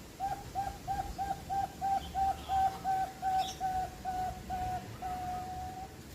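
Zebra dove (perkutut) cooing: a steady run of short, even, soft notes at about three a second, running together near the end into one longer held note.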